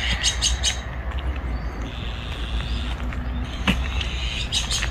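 Outdoor ambience: small birds chirping in short clusters near the start and again near the end, over a steady low rumble, with one sharp click a little before the end.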